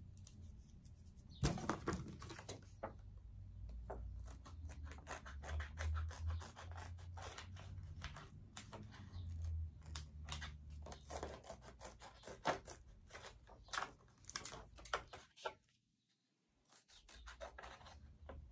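Scissors snipping through a laminated paper cutout, cutting by hand: a long run of small irregular clicks. The snipping stops for about a second and a half near the end.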